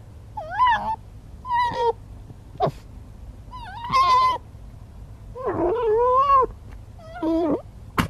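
Red fox calling: five wavering, pitched cries, each under about a second long, with the longest just past the middle, and a sharp click between them.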